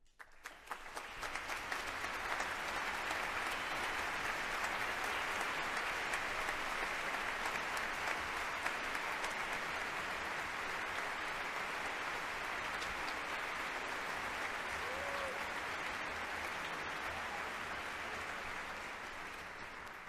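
Concert-hall audience applauding. The clapping swells over the first couple of seconds, holds steady, and begins to die down near the end.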